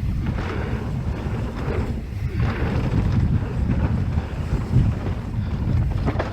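Wind buffeting the microphone of a mountain biker's GoPro action camera during a fast descent, heard as a steady low rumble, with swells of hiss from the bike's tyres on the dirt trail.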